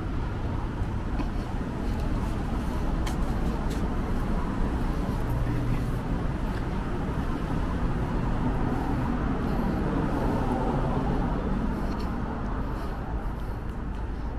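City street traffic: a steady rumble of cars on the road, swelling for a few seconds in the middle.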